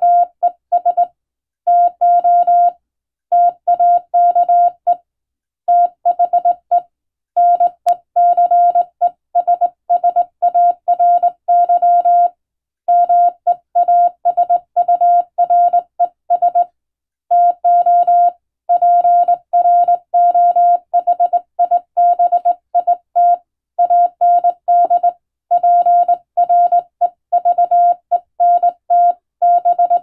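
Morse code sent by hand on a straight telegraph key: a single steady tone keyed on and off in dots and dashes, spelling out English text, with short pauses between words.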